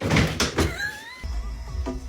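Music starting abruptly, with a few sharp knocks in the first half second and rising tones about a second in.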